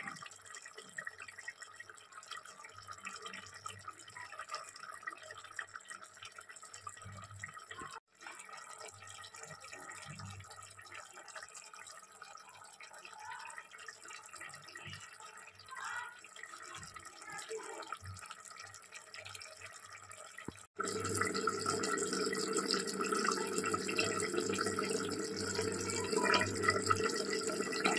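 Chicken curry simmering in the pot, the gravy bubbling with small irregular pops. About 21 s in, the sound jumps louder and steadier at a cut.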